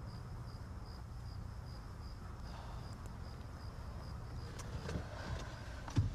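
A cricket chirping in a steady rhythm, a couple of chirps a second, over a low steady hum; the chirping fades out about two-thirds of the way through. A short thump near the end.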